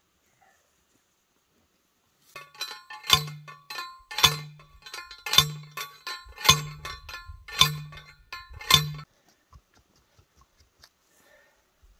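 Hand post driver pounding a steel fence post into the ground: six hard metallic clangs about a second apart, each with a short ringing tail.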